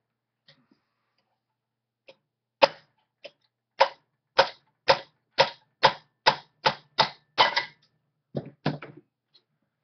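A hammer striking a metal drift about a dozen times to drive a fitted part back out of a Singer 27 sewing machine's mechanism, sharp metallic taps coming faster toward the end.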